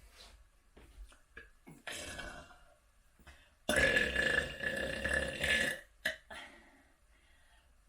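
A person burping: a short burp about two seconds in, then a long, loud burp lasting about two seconds.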